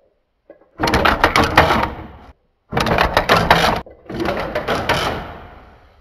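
Wire stitching machine clattering in three short runs of rapid mechanical strokes, the last one fading out slowly, as it saddle-stitches booklets with wire fed from a spool.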